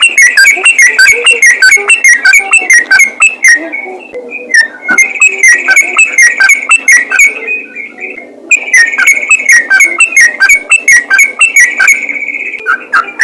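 Yellow-vented bulbul (trucukan) singing "ropel" style: long runs of rapid, repeated chattering notes, with brief breaks about three and a half seconds and eight seconds in. The recording is loud.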